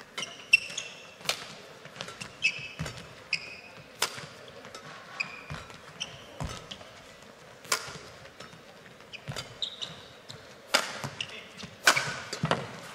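Badminton rally: about a dozen sharp racket strikes on the shuttlecock, roughly one every second, the hardest near the end, mixed with short high squeaks of players' shoes on the court mat.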